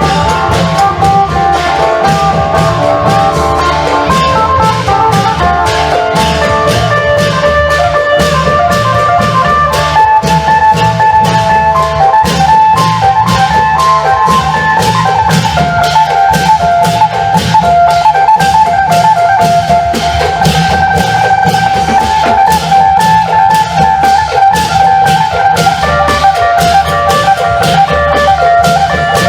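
Isan klong yao long-drum band playing a steady driving beat on long drums and percussion, under a plucked phin (Isan lute) melody.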